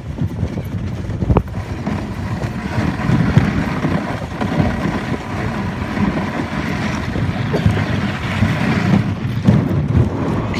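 Dog sled moving over snow: a steady hiss of the runners sliding on the snow, with wind buffeting the microphone and a single knock about a second and a half in.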